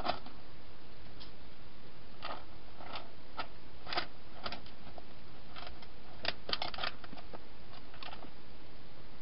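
A wild hedgehog feeding and moving about inside a clear plastic feeding box: irregular small crunches and clicks, in two loose clusters, with the densest run of clicks a little past the middle. A steady hiss lies underneath.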